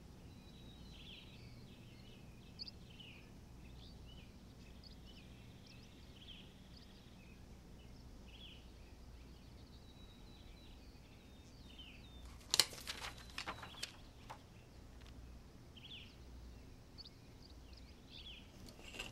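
Quiet room ambience with faint, scattered high bird chirps, and a short cluster of sharp clicks and knocks about two-thirds of the way through.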